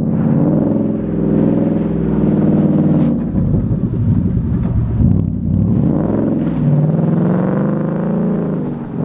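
2012 Ford Mustang 5.0 V8 through a freshly installed Pype Bomb aftermarket exhaust, driving past close by and pulling away. The revs rise, drop about three seconds in, and climb again.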